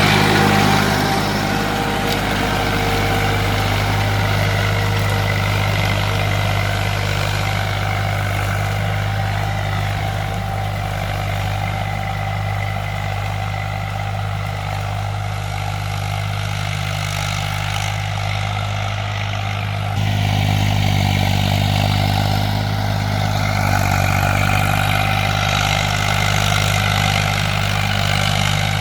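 Tractor engine running steadily under load, with a low, even hum; it gets suddenly louder about twenty seconds in.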